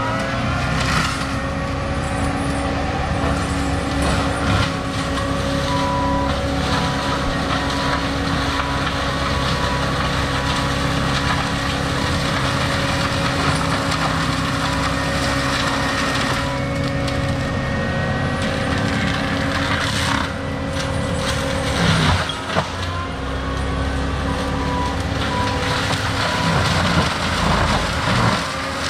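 Diesel land-clearing machine working under load: a steady engine and hydraulic drone with a constant high whine, and repeated loud crunching of brush and wood. Two runs of short evenly spaced beeps sound, one a few seconds in and one near the end.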